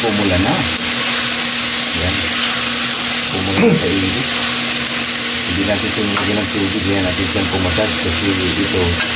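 Octopus sizzling in hot oil in a metal wok while a metal spatula stirs and scrapes through it, over a steady low hum. There is one sharp clack about three and a half seconds in.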